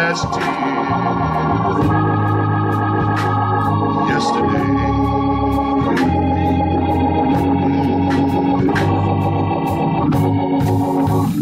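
Organ playing held chords over a bass line that moves from note to note, with scattered sharp percussive hits.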